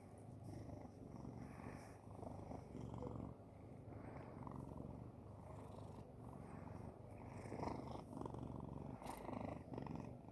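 A pet cat purring close up: a continuous low rumble that swells and fades with each breath.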